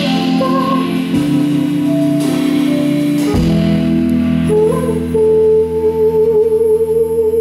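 Live band playing the closing bars of a soul song, a woman singing over sustained chords. About halfway through she holds one long final note, which ends near the end.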